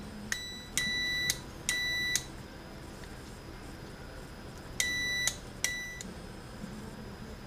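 A continuity tester beeps: five steady high beeps, most about half a second long, with a pause in the middle. Each beep sounds as the rotary on/off switch on the volume control is turned on and its cleaned contacts close.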